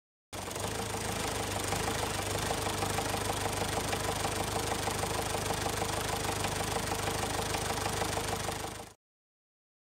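Engine of an old open-top jeep running steadily with a fast, even chugging beat. It starts abruptly and fades out near the end.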